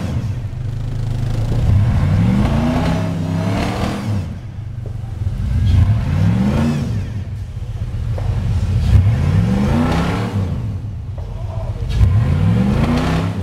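Off-road rock crawler buggy's engine revving in repeated bursts, each climbing in pitch and falling back, about every two to three seconds while the buggy crawls along under load.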